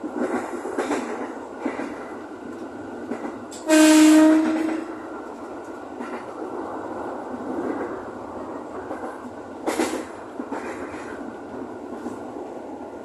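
JR 205 series electric commuter train running along the track, heard from the driver's cab, with occasional clacks from the wheels. About four seconds in, the train's horn sounds one steady blast lasting about a second.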